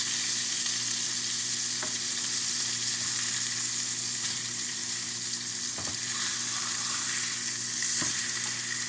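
Hamburger patties frying in a hot skillet: a steady sizzle with a few faint pops of grease.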